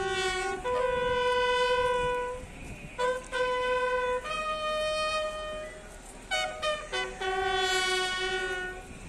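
Bugle call sounded for a military salute. Short quick notes lead into long held notes, each a single clear brass tone, stepping between a few pitches.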